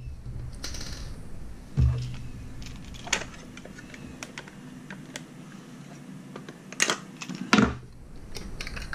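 Scattered small clicks and taps of a plastic MESR-100 meter case being handled while a small screwdriver takes out the battery-cover screw, with two louder knocks near the end as the cover comes off.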